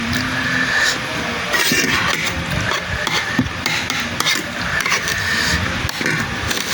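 Eating sounds of spicy rice vermicelli: irregular chewing with utensils tapping and scraping a dish, over a steady high-pitched background hum.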